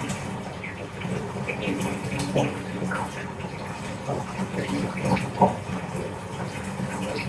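Bath tap running, water pouring steadily into the bathtub.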